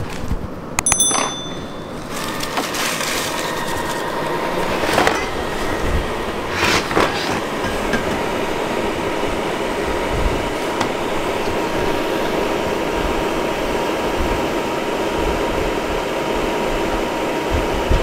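Ecovacs Deebot Ozmo T8 robot vacuum starting a cleaning run: a few clicks and a short beep about a second in. Then its suction fan and brushes start up about two seconds in and run steadily with a faint whine, with a couple of brief knocks along the way.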